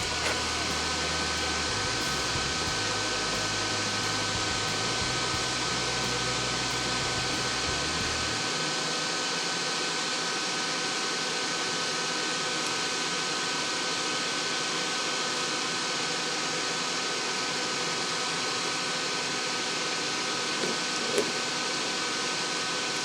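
Small electric fan motor running steadily: an even rush of air with a high whine on top. A couple of light clicks come near the end.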